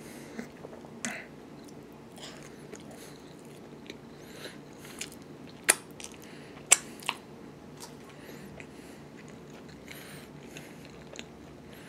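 A person chewing and biting into chicken close to the microphone: wet mouth sounds and small crunches, with a few sharp clicks about six and seven seconds in.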